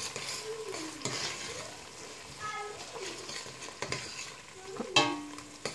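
Tomato sauce with chopped onions and garlic frying in oil in a stainless steel pot, sizzling steadily while a spoon stirs it. A few knocks of the spoon against the pot, the loudest about five seconds in.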